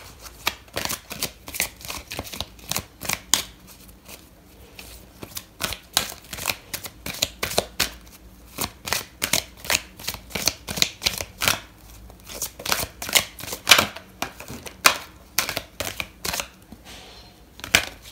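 A deck of oracle cards being shuffled by hand: a rapid, irregular run of crisp card slaps, about two to three a second, with brief pauses.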